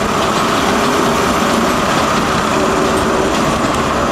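Class 43 HST diesel power car running loud and steady, its MTU diesel engine giving a constant roar with a strong mid-pitched drone.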